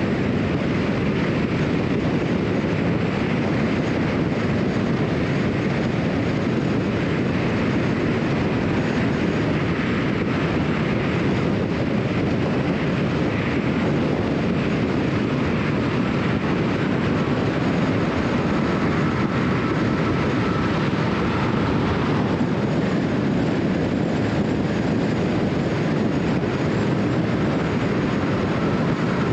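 Steady road noise of a car cruising at freeway speed: tyres rolling on the concrete and wind, an even rumble with no breaks.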